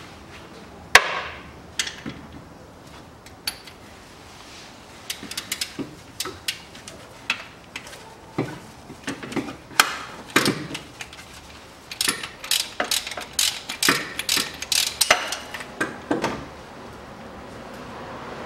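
Metal hand tools clicking and clinking at the timing-belt tensioner pulley of a Kia Rio's 1.4 engine while its bolts are undone: one sharp metallic knock about a second in, then irregular clicks that come thicker in the second half.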